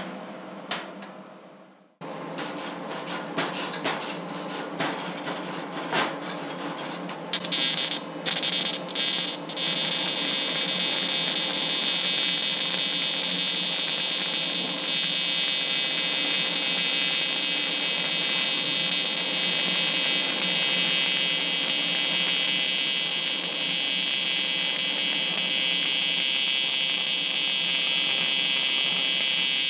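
Stick welding arc from a Prime Weld TIG 225X on AC with 6013 rod: irregular pops and sputters as the arc gets going a few seconds in, then settling into a steady, dense crackling hiss as the bead runs.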